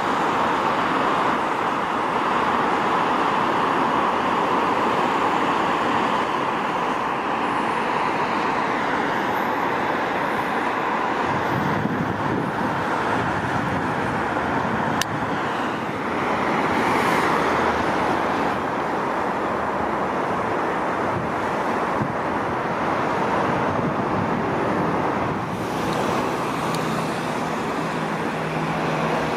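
Steady road traffic noise from busy multi-lane city roads, a continuous rush of passing cars and trucks, with a low engine hum coming in near the end.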